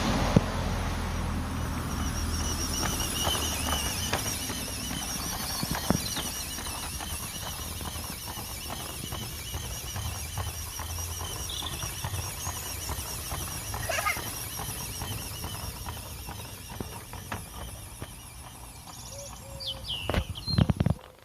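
Gauge One model BR 08 shunter locomotive running on its track, its 6-volt geared motor giving a thin, steady high whine, with scattered light clicks.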